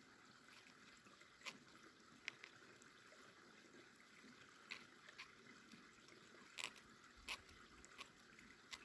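Victorinox Ranger Swiss Army knife blade shaving curls off a stick of resinous fatwood: about seven short, quiet, crisp scraping strokes at irregular intervals over a faint hiss.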